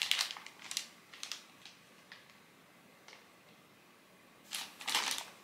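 Plastic crinkling and light plastic clicks as a boxed bingo game and its packaging are handled. There are several short rustles in the first two seconds, a near-silent pause, then another rustle near the end.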